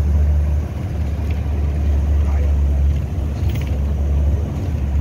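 Steady low rumble of a moving vehicle heard from inside it, with light rattling and a short clatter about three and a half seconds in.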